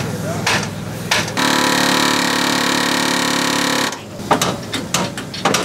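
Handheld pneumatic air hammer running in one steady, rapid burst of about two and a half seconds, starting about a second and a half in. Scattered metal knocks and clinks come before and after it.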